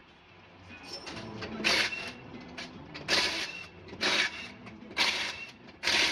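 Impact wrench on a truck's front-wheel lug nuts, zipping in five short bursts about a second apart, starting nearly two seconds in, as the wheel nuts are run off.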